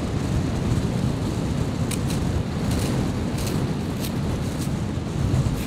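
Strong wind blowing across the microphone, a steady low rumble, with a series of short scratchy rasps from about two seconds in as gloved fingers rub a crusty 2p coin.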